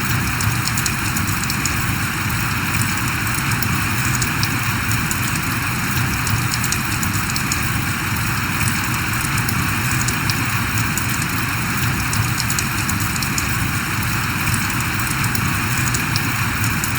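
Steady rain falling, an even hiss with scattered fine drop ticks throughout.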